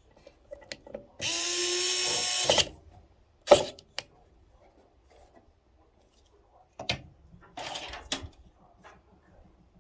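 A power drill runs once for about a second and a half, its pitch rising as it spins up and then holding steady. A few sharp clicks and knocks follow.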